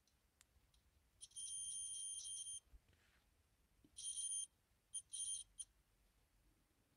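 Multimeter continuity buzzer beeping as the probes are held across a component: one long beep, then a shorter one, then three quick short ones. The beeping shows a dead short, here in a diode on the TV's power board.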